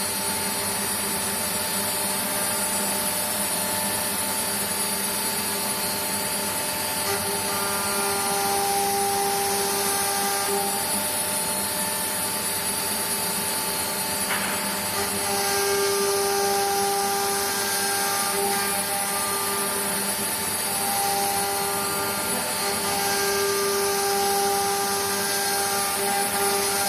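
Four-axis CNC router's tilted air-cooled spindle running with a steady high whine while its bit cuts along the edge of a slotted block. The cutting noise swells louder three times as the bit makes its passes, with a single sharp click about halfway through.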